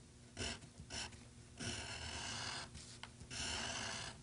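Drawing tool scratching across paper as a drawing is traced over transfer paper: four strokes, two short ones in the first second, then two longer ones of about a second each.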